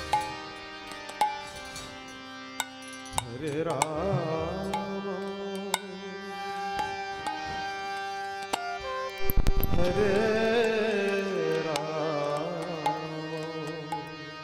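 Devotional kirtan music: harmonium holding steady chords under mridanga drum strokes and the sharp clicks of kartal hand cymbals. A wavering melody phrase comes in about three seconds in and again near ten seconds, where a cluster of loud drum strokes is the loudest moment.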